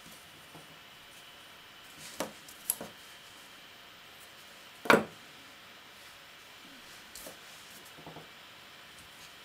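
Scissors snipping bunches of polyyarn fibres into short pieces: a few sharp snips, the loudest about five seconds in, with fainter ones later.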